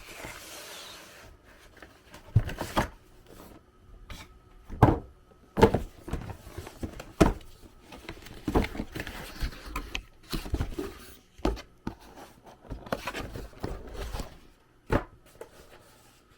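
A graphics card box being opened and its packaging handled: irregular knocks and scrapes of cardboard, with rustling between them.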